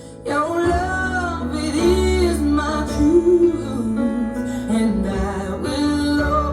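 A slow song: a voice singing over instrumental backing. It comes back in from a brief quieter moment about a third of a second in.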